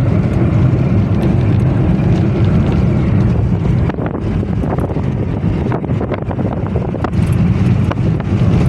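Steady low rumble of a moving vehicle, with heavy wind buffeting the microphone; the level dips slightly about four seconds in.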